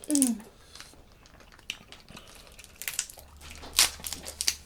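Eating sounds: scattered clicks, crackles and soft squishes of someone handling and biting into seafood-boil shrimp and crab, the sharpest crack nearly four seconds in. A brief falling "mm"-like voice sound right at the start.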